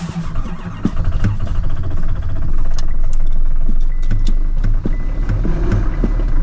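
Chevrolet pickup truck's engine running just after a deep-cold start, revved with the gas pedal to the floor yet climbing only sluggishly, only to about 2,000 RPM, in the extreme cold. It is heard from inside the cab and gets louder about a second in.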